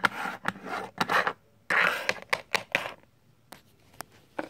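Small plastic toy figure being moved across a wooden tabletop: a quick run of short scraping and tapping scuffs, then two sharp clicks near the end.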